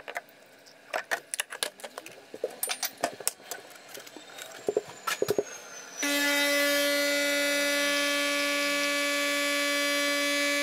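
Light clicks and clinks as a milk frother jug is handled, then about six seconds in a capsule coffee machine's pump starts a steady, loud buzz as it brews coffee into a mug.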